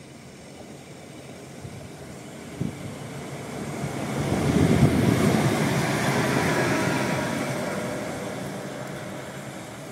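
A pair of electric locomotives, SNCB class 19 no. 1904 leading class 18 no. 1811, running light past at speed: wheel-on-rail rumble and a hum with a few steady whining tones swell to a peak about halfway through, then fade as they draw away.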